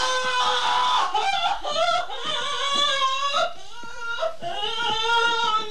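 A woman wailing hysterically in long, high held cries that break and shift in pitch every second or so, with low thuds of scuffling feet beneath.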